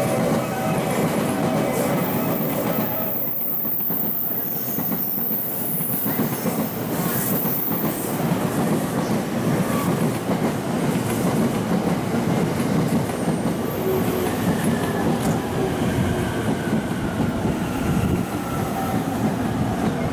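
Electric commuter train running on rails at the platform, a loud steady rumble of wheels on track, with a falling electric motor whine in the second half.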